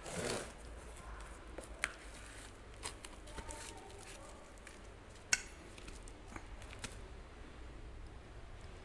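Light handling noises: a short rustle at the start, then a few scattered clicks and taps, the sharpest about five seconds in, over a faint low hum.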